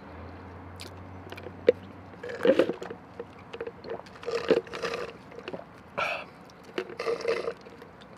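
Close-miked sipping of a drink through a straw from a paper cup, slurps and swallows coming in several short bursts.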